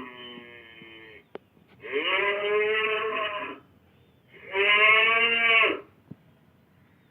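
Cattle mooing: a call trailing off, then two long moos of about a second and a half each, with a short click between them.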